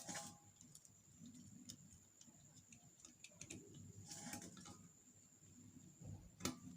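Faint ticks and clicks of a screwdriver tightening the screws on an electric kettle's element and thermostat, with a sharper click near the end.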